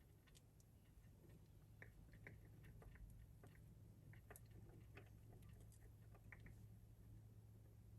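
Faint, irregular small clicks and ticks of beads and beading wire being handled as the wire end is threaded back through a crimp tube and the strung beads.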